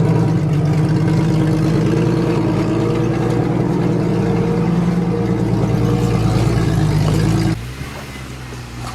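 Jeep engine running steadily and loudly; about seven and a half seconds in the sound drops abruptly to a quieter engine running.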